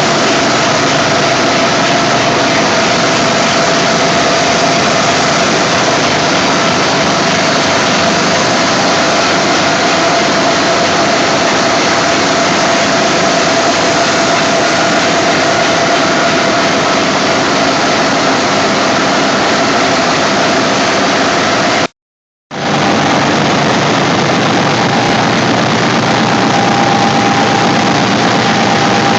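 Reciprocating air compressors driven by high-voltage synchronous motors running steadily: a loud, even machinery din with a constant whine through it. A brief total break about three-quarters of the way through, after which the whine sits slightly higher.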